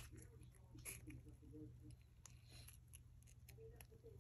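Near silence: a low steady hum with a few soft taps and clicks from small handling of craft tools, including a sharp click right at the start.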